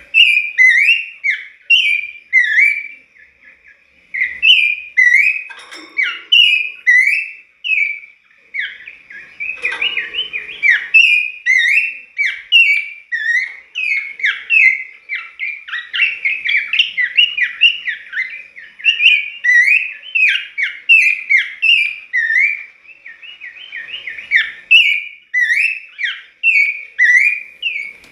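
A caged pelanduk semak (a babbler) singing persistently: a fast, varied run of short, clear, sweeping whistled notes, broken by only a couple of brief pauses.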